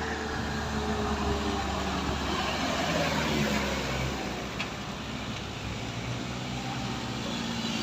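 Motor vehicle engine running with a steady low drone, its pitch shifting slightly partway through, and a single short click a little past the middle.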